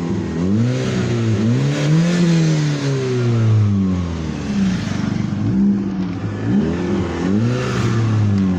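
Chevrolet Meriva's four-cylinder engine revved several times from idle, its pitch rising and falling with each blip, through a newly fitted sport exhaust tip.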